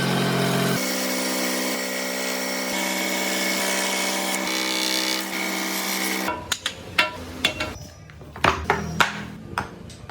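A power tool motor runs steadily under load, cutting wood, for about six seconds, then cuts off suddenly. It is followed by a series of irregular sharp knocks.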